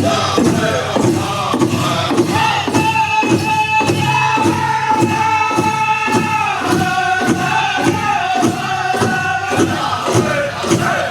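Powwow drum group singing a crow hop song: male voices hold long notes over a steady, even beat on a big drum, about two and a half strokes a second.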